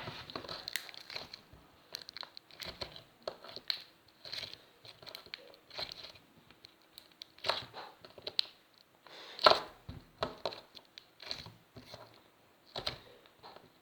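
Hands squishing and pulling a glittery slime, making irregular soft crackles and clicks, with a louder crackle twice, about seven and a half and nine and a half seconds in.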